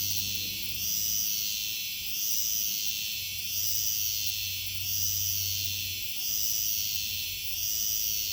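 Iwasaki hime-harusemi cicadas (イワサキヒメハルゼミ) singing: a high buzzing that swells and fades in a steady rhythm, about once every second and a half. A low hum lies underneath and stops about six seconds in.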